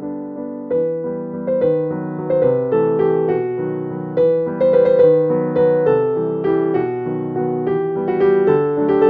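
Background piano music, a melody of single struck notes.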